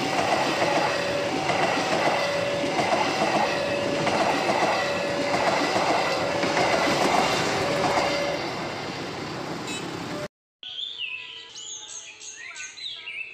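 Passenger train coaches running past close by: a loud steady rumble with regular wheel clicks and a repeating two-note tone, fading after about eight seconds. The sound cuts off about ten seconds in, and birds chirping follow.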